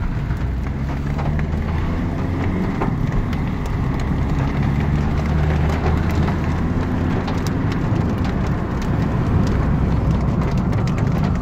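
Car driving on a wet road, heard from inside the cabin: steady engine and tyre noise, with raindrops ticking on the windshield, more often in the second half.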